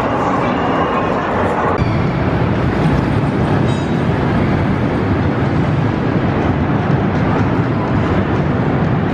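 Steel roller coaster train, a Chance Rides coaster, rolling along its track: a loud, steady rumble of wheels on rail. The sound changes abruptly about two seconds in.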